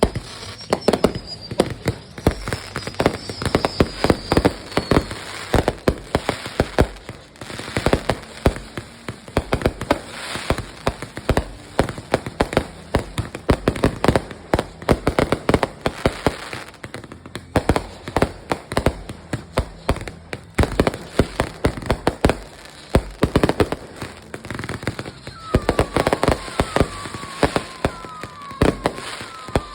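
Fireworks going off: a rapid, irregular run of sharp bangs and crackles. A high whistle glides down in pitch over the first few seconds, and a string of shorter falling whistles comes near the end.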